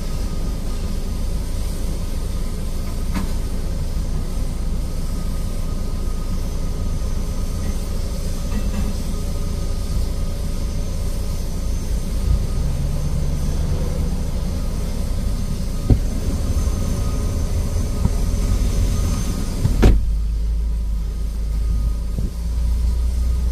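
Steady low engine rumble heard from inside the cab of a parked vehicle, with a faint steady high whine over it. A few light knocks come through, the sharpest about 20 seconds in, after which the low rumble gets deeper and louder.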